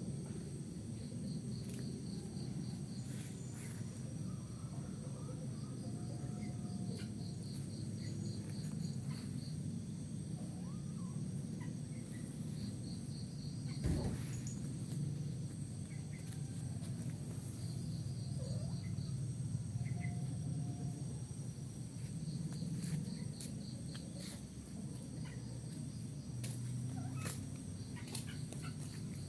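Outdoor ambience: high-pitched chirping in short, rapidly pulsed bouts that come back every few seconds, over a steady low rumble. A single sharp knock sounds about halfway through.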